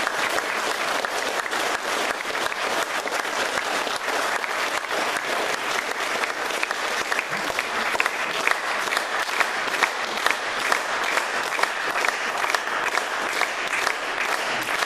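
Audience applauding: dense clapping from a roomful of people, with single claps standing out more in the second half.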